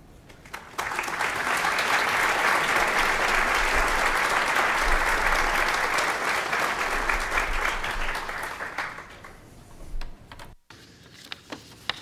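Audience applauding, starting about a second in and dying away near the end, followed by a few light knocks.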